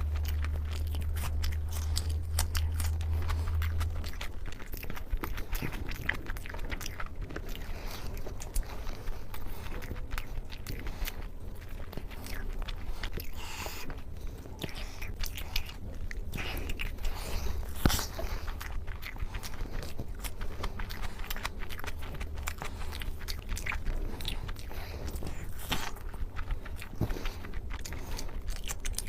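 Close-miked eating: steady chewing and biting, with many small crunches and mouth clicks, over a low hum that is louder in the first few seconds.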